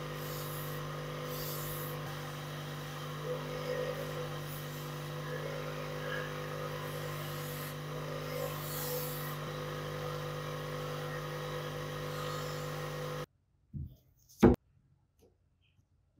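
Motor-driven buffing wheel running with a steady hum while a black handle scale is pressed against it, the rubbing adding a few brief rushes of high hiss. The hum stops abruptly about 13 seconds in, followed by two sharp knocks less than a second apart.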